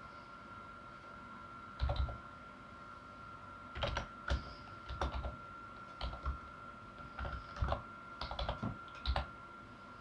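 Computer keyboard being typed slowly: about a dozen short key clicks at uneven intervals, with a faint steady high whine underneath.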